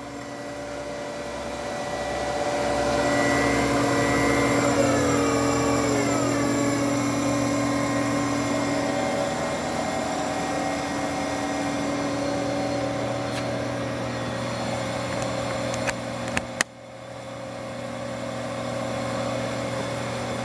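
American Turnmaster ATV-618-TR toolroom lathe running with its spindle at high speed on the electronic variable-speed drive, a steady hum with whining tones. About five seconds in the tones glide down in pitch as the spindle speed comes down, then hold steady; near the end come a couple of clicks and a sudden brief drop in level.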